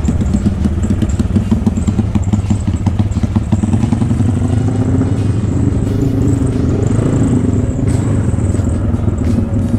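Modified Honda GL motorcycle's single-cylinder engine running under way, with an intermittent clatter from the front fork, whose shock absorbers are low on oil.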